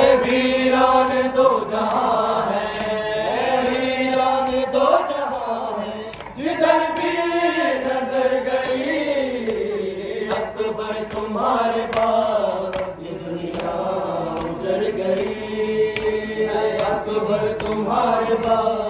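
A group of men chanting a noha, an Urdu Shia lament, in slow lines that are held and bend in pitch, with a few sharp slaps scattered through it.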